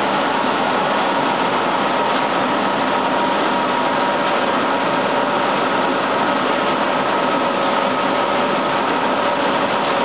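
Buckwheat processing line machinery running: a loud, steady industrial din with a few faint, even whining tones through it.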